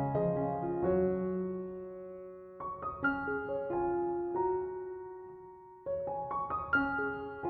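Background piano music: slow, gentle phrases of a few quick notes that ring and fade.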